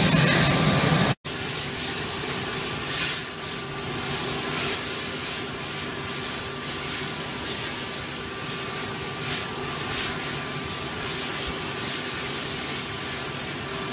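Steady aircraft engine noise on the flight line that cuts off abruptly about a second in, giving way to a quieter, even hiss with a faint machine hum.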